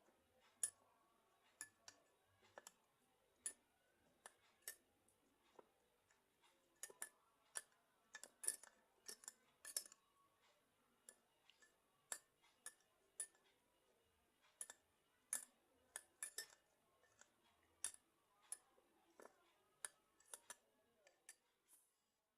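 Light, sharp clicks and taps at irregular intervals, some in quick clusters, over faint background hiss.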